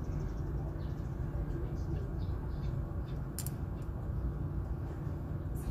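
Steady low background rumble, with a few faint, short high chirps over it, the clearest about three and a half seconds in.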